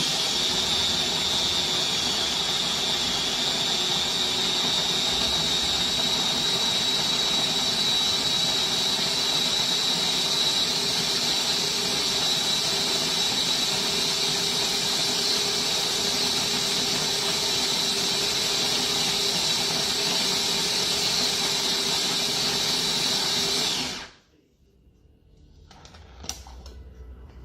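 Sboly electric conical burr coffee grinder motor running with a steady high whine, shutting off abruptly about 24 seconds in. A few faint clicks follow.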